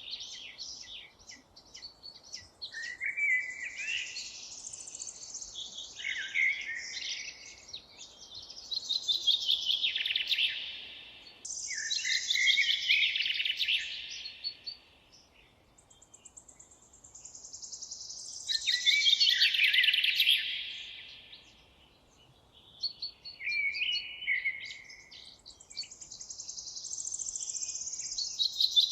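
Forest songbirds singing: a repeated song phrase that falls in pitch over two or three seconds, every few seconds, with shorter chirps in between.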